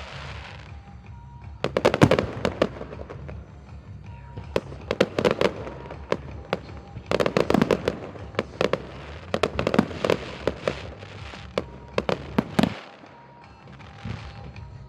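Aerial fireworks going off in rapid crackling volleys: several clusters of sharp bangs a few seconds apart, which die away shortly before the end.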